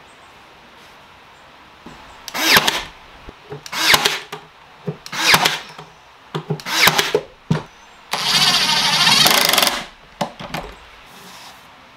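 Ryobi AirStrike cordless brad nailer firing several times in a row into a wooden frame, each shot a short whir and snap, then a Ryobi cordless driver running steadily for about two seconds, with a brief blip after.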